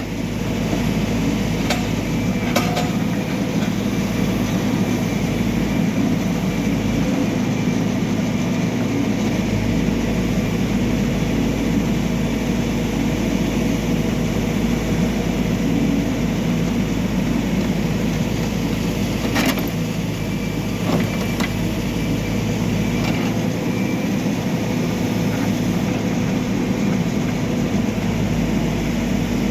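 Backhoe loader's diesel engine running steadily, with a few sharp metallic knocks from the machine at work, once early on and twice about two-thirds through.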